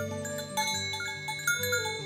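Background music: a bell-like mallet melody of glockenspiel or chime-type notes over held, stepping bass notes.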